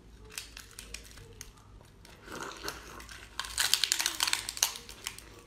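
Close-up eating sounds as a bundle of razor clams is bitten into: scattered wet clicks, then a dense run of crackly chewing and crunching about three and a half seconds in.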